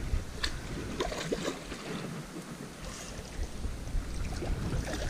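Wind rumbling on the microphone over faint water noise, with a few light clicks in the first second and a half.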